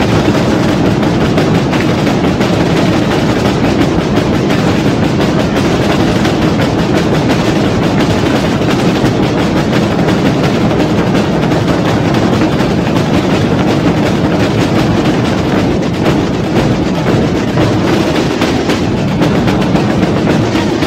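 A massed corps of snare drums (tambores) and large bass drums (bombos) playing together without pause, a loud, dense, unbroken stream of strokes.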